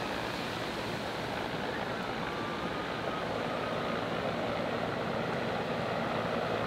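Bell 412 helicopter hovering, its rotors giving a steady pulsing beat under an even rushing hiss, growing slightly louder toward the end.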